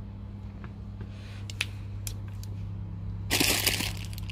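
Plastic packaging being handled: a few light clicks and taps, then a loud burst of crinkling plastic a little over three seconds in, over a steady low hum.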